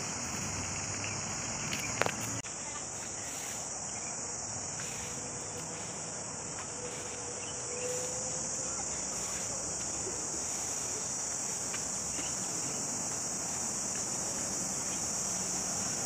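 A chorus of cicadas in the trees makes a continuous high-pitched buzzing drone. A single sharp click cuts through about two seconds in.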